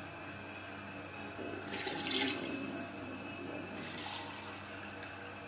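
Spiced water for chicken pulao bubbling and simmering in an aluminium pot on the stove, a soft steady bubbling hiss that swells briefly about two seconds in.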